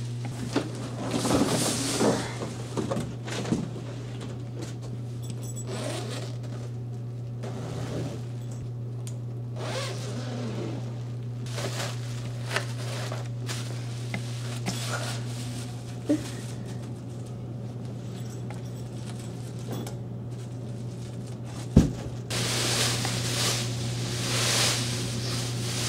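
Crinkling of plastic wrapping and rustling of fabric as a compressed foam bean bag chair and its cover are unpacked, with a zipper being worked along the cover. A single sharp knock, then louder, sustained crinkling near the end as the plastic wrap is pulled off, over a steady low hum.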